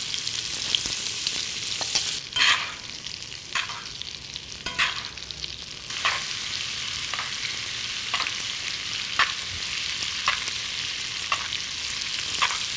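Butter sizzling and bubbling in a cast iron pan around a bone-in rib eye steak. Short spoon scrapes or knocks on the pan come about once a second from a couple of seconds in, as the foaming butter is basted over the meat. The butter is browning but not burning, the sign that the pan's temperature is right.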